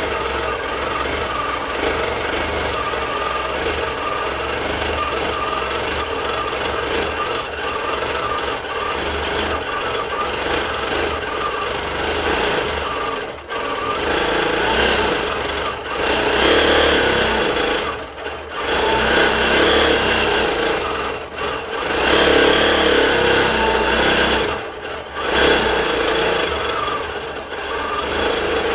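Bernina longarm quilting machine stitching in stitch regulated mode, its needle running fast as the head is moved across the quilt. In the second half it runs louder and drops away briefly several times as the movement pauses.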